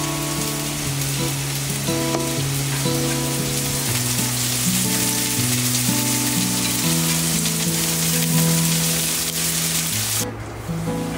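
Diced onion, shiitake mushrooms and green onion sizzling in hot oil in a frying pan as minced garlic is stir-fried in with chopsticks. The sizzle drops out briefly near the end. Background music with slow held notes plays throughout.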